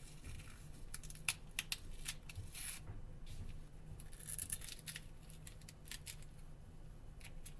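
Faint scratchy crinkling and sharp little clicks as an adhesive heat spreader sheet is peeled off a phone battery by hand.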